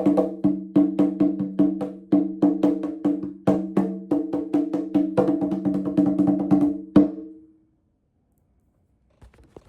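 Music on a pitched percussion instrument: quick struck notes on a few repeating low pitches. It stops with a last strike about seven seconds in that rings out briefly, followed by silence with a couple of faint clicks.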